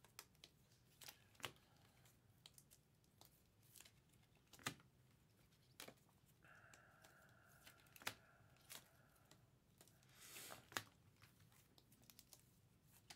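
Faint clicks and light plastic rustles of trading cards in plastic sleeves and hard holders being handled and set down on a table, with a brief crinkle near the end.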